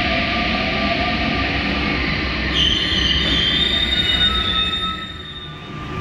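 An MP89 rubber-tyred Paris Métro train running into the platform with a steady rumble. A high squeal sets in about two and a half seconds in, and the sound dies down near the end as the train slows.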